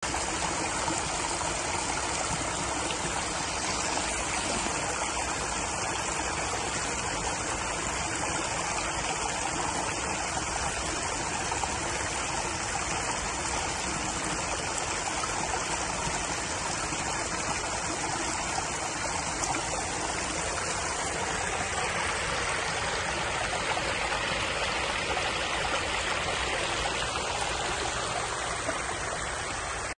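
Small cascade of water spilling over rocks into a shallow pool: steady splashing and rushing of running water.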